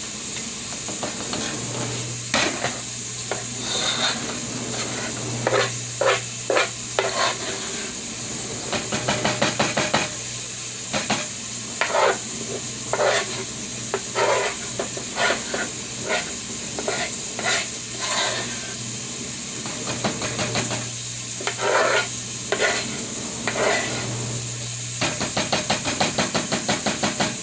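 A utensil stirring and knocking against a bowl, with scattered scrapes and two quick runs of strokes at about eight to ten a second, over a steady hiss.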